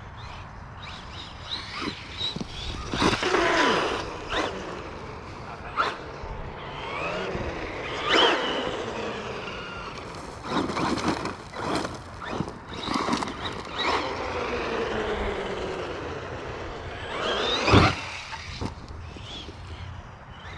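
Losi LaserNut RC rock racer being driven hard: its electric motor whines up and down in repeated bursts of throttle, with tyres scrabbling over the ground and sharp knocks from landings or hits, the loudest about three seconds before the end.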